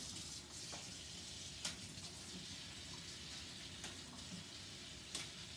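Cold tap water running into a kitchen sink to wash collard greens: a faint steady hiss, with a few light clicks and knocks as the leaves are handled in the sink.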